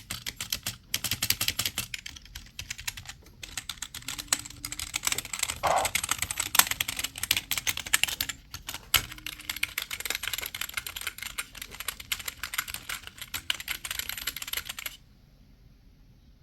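Typing on a computer keyboard: a fast, dense stream of keystroke clicks with a few short pauses, stopping about a second and a half before the end.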